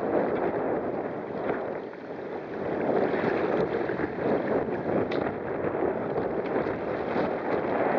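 A sailing kayak rushing through choppy water in strong, gusty wind: water splashing along the hull mixed with wind buffeting the microphone. It eases briefly about two seconds in, then picks up again.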